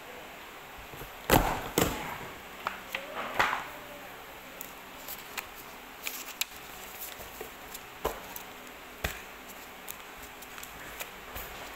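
Sheets of paper knocked square on a desk and handled at a two-hole desk hole punch: a string of sharp thuds and clacks, the loudest a little over a second in and two more later, with paper rustling and light clicks between.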